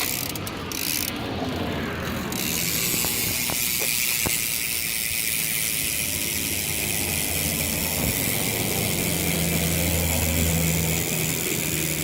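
BMX rear hub ratcheting as the rear wheel spins: the pawls click, at first a few separate clicks, then from about two seconds in a fast, continuous buzz of clicking.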